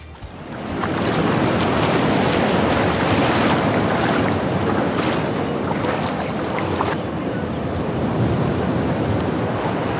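Surf washing in on a sandy beach, a steady rush of waves with wind on the microphone, swelling up over the first second.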